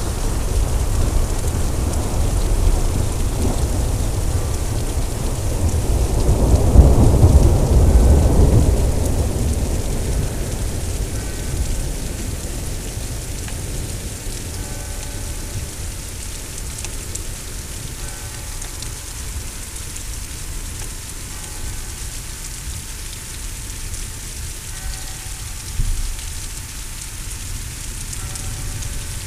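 Heavy rain falling steadily during a thunderstorm, with a long rumble of thunder that swells to its loudest about seven seconds in and dies away over the next few seconds. A short low thump comes near the end.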